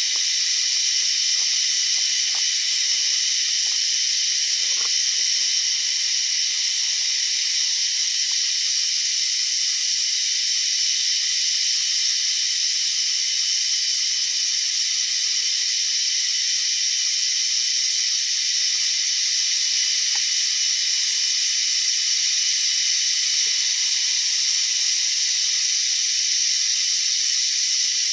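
Cicadas droning: a loud, steady, high-pitched buzz. Above it, a fainter pulse repeats about every two-thirds of a second, through roughly the first third and again later on.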